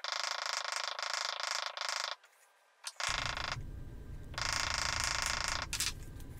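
Hemp twine wrapped around a sword handle creaking and squeaking as the wrap is twisted and squeezed by hand, in three main bursts of about half a second to two seconds and a short one near the end. A low rumble sets in about halfway through.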